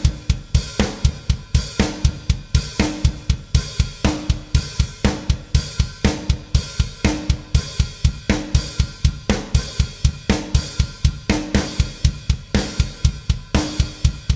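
Drum kit playing a sixteenth-note pattern at 60 BPM: bass drum on steady sixteenths, about four hits a second, with snare and cymbal accents stressing the normally unaccented beats for syncopation. Played in a heavy-metal style.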